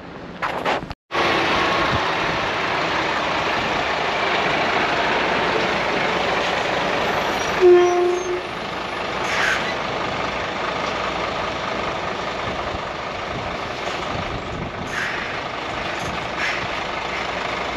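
A heavy truck running steadily, with one short tooting tone about eight seconds in and a few brief hisses after it.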